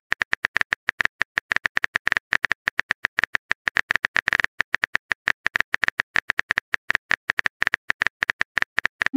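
A rapid, uneven run of short clicks, about nine a second, each with a bright ringing tone, like a keyboard-typing or text-blip sound effect. It ends in a brief swooping glide.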